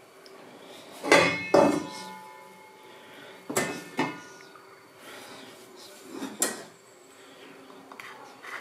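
Metal cookware clanking as pots and pans are handled and set down on the stove top. There is a loud pair of knocks with a ringing metallic tail about a second in, two more knocks around three and a half to four seconds, and a single one near six and a half seconds.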